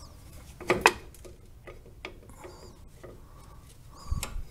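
Light metallic clicks and taps from handling rear drum brake shoes and their springs: two sharp clicks about a second in, a few faint ticks, and a dull knock near the end.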